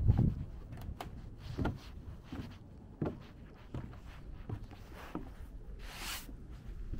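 Footsteps of a hiker walking at a steady pace on a trail, about one step every 0.7 seconds. Wind buffets the microphone at the start, and a brief hiss comes about six seconds in.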